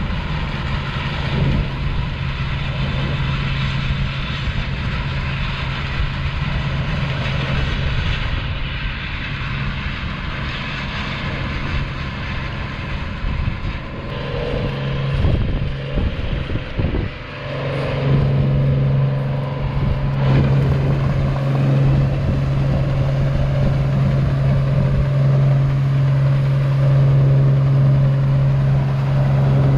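Claas Dominator 85 combine harvester running under load while harvesting wheat, a steady low engine-and-machinery hum. It wavers and dips about halfway through, then settles back to a stronger steady hum for the rest.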